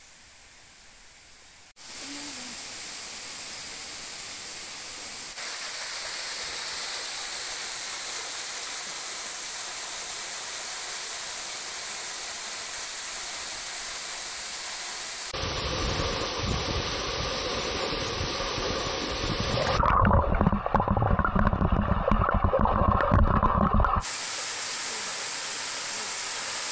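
Steady rushing of running water, heard in several short clips joined by sudden cuts. About fifteen seconds in it turns rougher and fuller, with a deep rumble that is loudest from about twenty to twenty-four seconds, then the even rushing returns.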